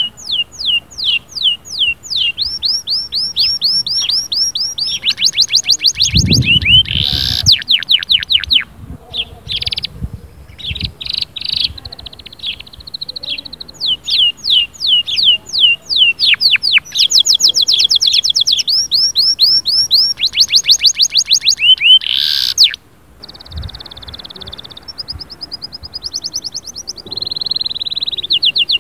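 Canary singing: fast trills of short falling chirps, many a second, in phrases that change every few seconds, with two quick rising sweeps and a brief pause about three-quarters of the way through.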